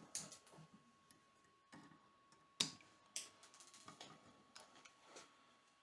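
Faint, scattered clicks and ticks of stiff electrical wires being bent and straightened in a wall switch box, five or so sharper clicks among softer ones.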